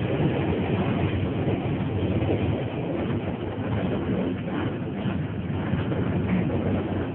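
Konstal tram running along a street track, heard from inside the car: a steady running noise of wheels on the rails.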